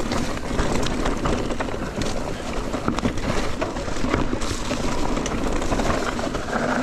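Mountain bike riding down a dirt trail: steady tyre and rolling noise with a dense rattle of small clicks and knocks from the bike over the ground.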